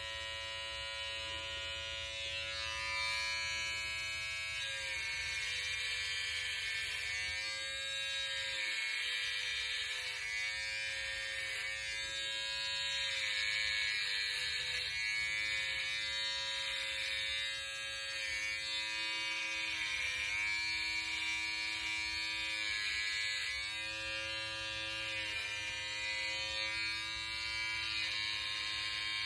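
Cordless electric hair clipper running continuously while shaving a head, a steady buzz whose pitch sags slightly and recovers several times as it is pushed through the hair.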